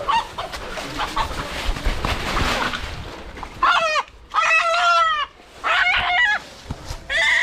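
Wild chicken calling: a run of four loud, harsh calls of about half a second each, starting about three and a half seconds in.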